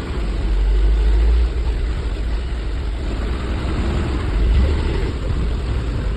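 Yamaha NMAX scooter's single-cylinder engine running with a rough sound, swelling briefly twice. The mechanic traces the roughness to a worn, loose valve rocker arm and roller.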